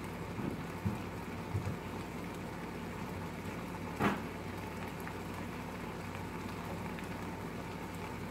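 Onions and mashed black beans sizzling steadily in a frying pan, with a faint steady hum underneath and one sharp click about four seconds in.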